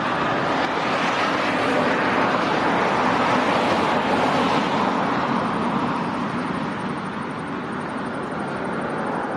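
Jet engine roar of an arriving Airbus A380, a loud, even rushing noise that swells about three to four seconds in and then slowly eases off.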